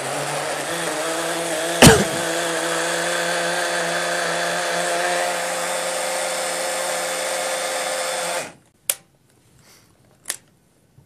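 Small personal blender with a screw-on cup running steadily as it purées fruit into a smoothie, with one sharp knock about two seconds in. The motor cuts off suddenly near the end, followed by two short clicks.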